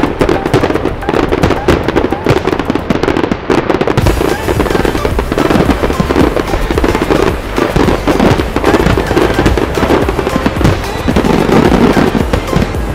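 Fireworks display: aerial shells bursting in rapid, continuous succession with crackling, growing fuller about four seconds in, with music underneath.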